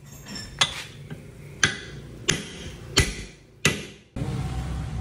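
Hammer blows on a steel drift driving out a heavily rusted cylinder liner from a D24 engine block: five sharp metallic strikes, each with a short ring, the rusted liner still stuck fast. A steady, louder noise cuts in suddenly near the end.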